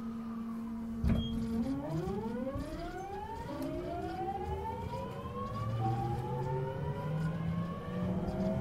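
The Mitsubishi GTO-VVVF inverter and traction motors of a TWR 70-000 series train accelerating away. A steady low tone and a knock about a second in are followed by several tones climbing together in pitch as speed builds. The tone pattern shifts about six seconds in.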